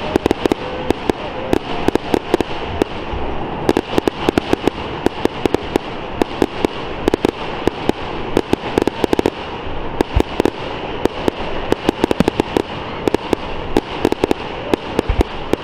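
Fireworks display going off: a rapid, unbroken series of sharp bangs and crackles, several a second, over a steady background hiss.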